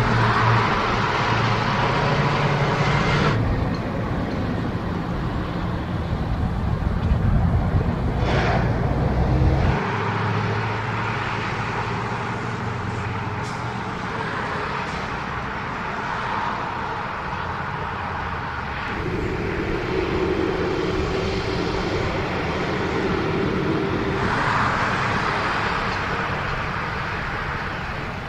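Road traffic passing close by: a truck and pickups towing horse trailers drive past, with engines running low and tyre noise on the road. A deep engine sound dominates the first ten seconds or so, then the tyre noise rises and falls as the next rigs go by.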